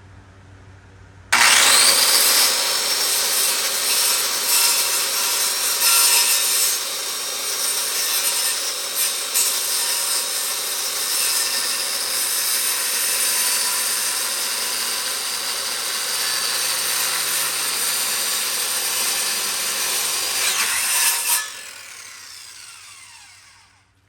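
Electric power saw cutting wood: the motor spins up suddenly about a second in, runs loudly and steadily through the cut for about twenty seconds, then is switched off and winds down with a falling whine near the end.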